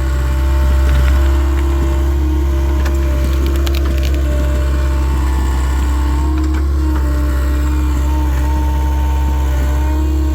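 Takeuchi TL26 track loader's diesel engine running steadily, with a whine over the drone. Wood cracks and splinters with a few sharp snaps about three to four seconds in.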